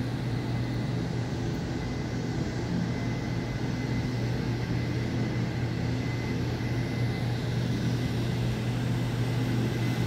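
Steady hum and hiss of air-conditioning units running, a constant low drone that does not change.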